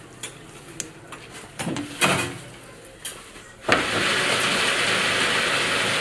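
Light metallic clicks and clatter from hands working the coil formers on a coil-winding machine. About two-thirds of the way in, a loud steady hiss starts suddenly.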